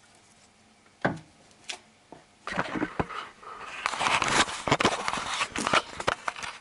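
Handling noise of a camera being moved about in a car's engine bay: a single click about a second in, then from about two and a half seconds irregular rustling, scraping and knocking that grows louder.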